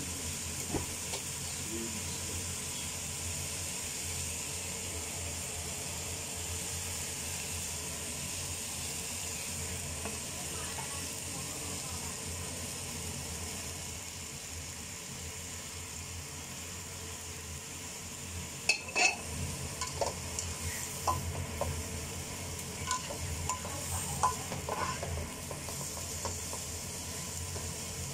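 Bean sprouts, enoki mushrooms and leek sizzling steadily as they stir-fry in a nonstick wok. From about two-thirds of the way through, a utensil clicks and knocks against the pan as the vegetables are stirred.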